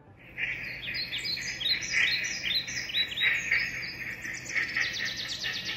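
Small birds chirping in quick runs of short, falling notes, which speed up into a rapid trill about four and a half seconds in.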